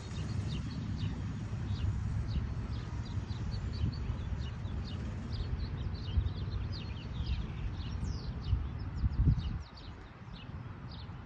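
Small birds chirping in a quick, irregular run of short, high, downward notes, over a low rumble of wind on the microphone that drops away near the end.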